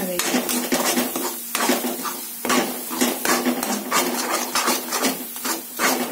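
Metal spoon scraping and knocking against a kadhai while stirring a thick spice paste being roasted in it, about three strokes a second, over a steady low hum.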